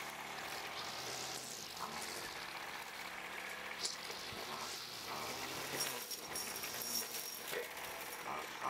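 Scratchy rustling and scraping of a long-handled garden tool worked over the ground, with scattered small knocks.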